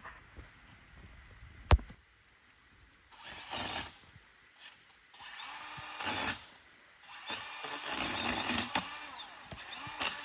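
Pole saw motor run in short bursts, winding up, holding and winding down several times and running longer towards the end, after a single sharp click near the start.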